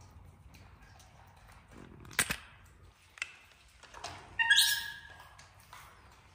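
A sharp knock and a lighter click, then, about four and a half seconds in, a short high-pitched squeal from a baby monkey.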